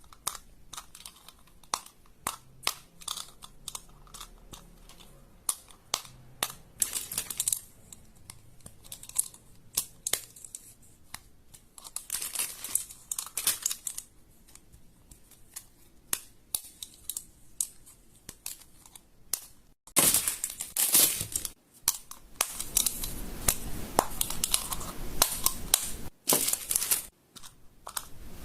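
Plastic fidget toys being handled up close: a run of sharp clicks and pops with some crinkling. About two-thirds of the way in, the clicking becomes louder and denser, with rustling between the clicks.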